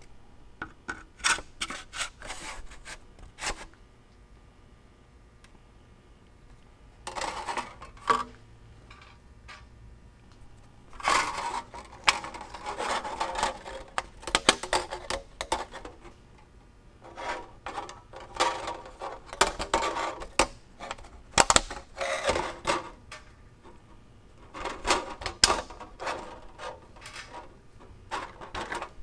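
Brass saw screws, a wooden saw handle and a steel saw blade clicking and knocking together as the hand saw is reassembled, in scattered bursts of small taps, clicks and rubs with pauses between.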